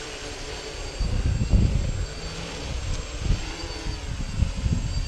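Small 3D-printed FPV quadcopter in flight, its electric motors and propellers whining, under an irregular, gusty low rumble on the microphone.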